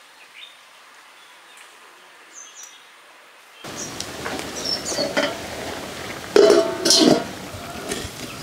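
A few faint bird chirps, then, after about four seconds, the background of a wood-fire kitchen with birds chirping. Near the end a metal pot lid clanks twice against a steel bowl, with a short ringing each time.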